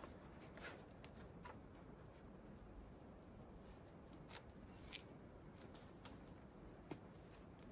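Near silence with a few faint, scattered clicks and taps.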